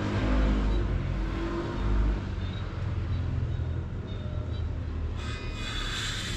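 Low, steady rumble of a running engine, joined by a broader hiss about five seconds in.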